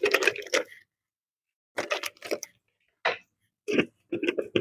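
Light clicks and taps in four short clusters about a second apart: ingredients being handled at a stone mortar and pestle, a seasoning packet emptied into the mortar and a jar picked up.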